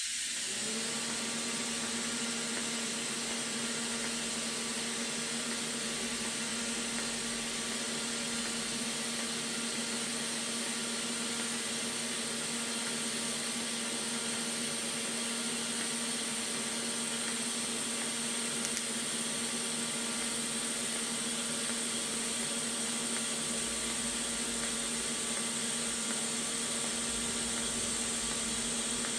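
TIG welding arc running steadily on a stainless steel exhaust manifold flange: an even hiss with a low, steady hum underneath.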